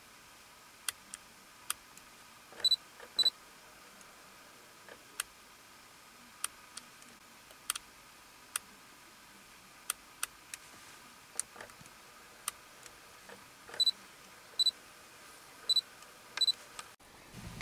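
Photo cameras clicking and beeping: a dozen or so sharp shutter clicks scattered over a quiet hiss, and three pairs of short, high, loud beeps, one pair about three seconds in and two near the end.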